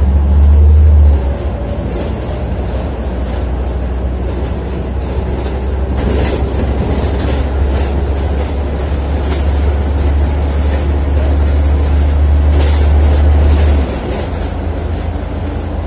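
Scania Omnidekka double-decker bus's diesel engine running under way, heard from inside the lower deck: a loud, steady low drone with scattered rattles and knocks from the bus body. The drone is loudest in the first second and drops off about fourteen seconds in.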